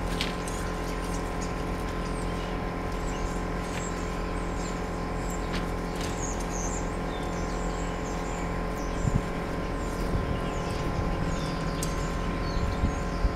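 Birds chirping over a steady mechanical hum, with a few faint clicks.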